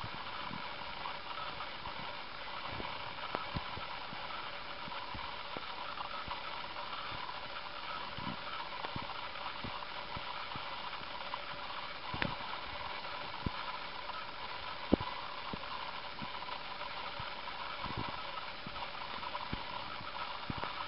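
A hamster working at a peanut in its shell: small cracks and clicks, a dozen or so at irregular intervals, over a steady hiss.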